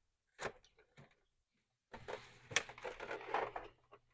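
Hard plastic parts clicking and scraping as a power window switch is worked into its opening in a door panel: two single clicks, then a couple of seconds of rubbing and rustling with several sharper clicks.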